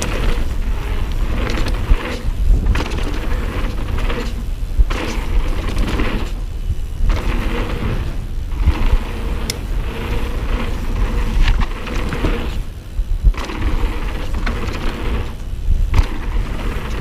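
Wind rumbling over a helmet- or bike-mounted action camera's microphone and mountain bike tyres rolling fast on packed dirt, with a few sharp knocks from the bike. The rough tyre noise thins out briefly several times.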